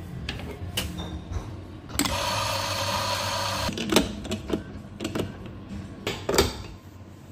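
Espresso grinder running for under two seconds, then a series of sharp metal clanks and knocks from a portafilter as it is handled, tamped and locked into the espresso machine.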